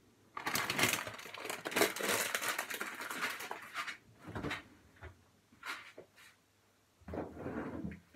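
Rustling and knocking of food containers being handled and pushed in among other items in a crowded refrigerator. A dense run of rustling and clatter for the first few seconds, then scattered knocks and rustles.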